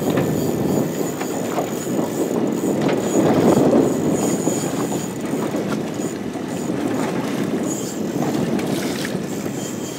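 Steady rumbling rush of wind and sea water around a small open fishing boat, swelling slightly a few seconds in.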